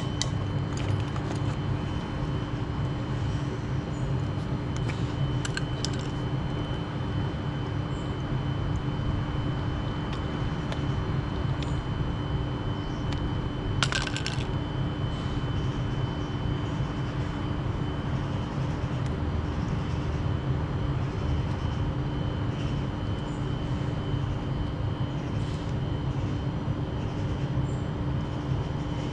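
A steady mechanical hum with a constant tone running through it, and one sharp click or knock about fourteen seconds in.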